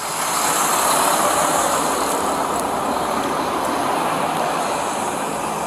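Steady, even rushing noise of highway vehicles and engines running at the roadside, with no distinct impacts.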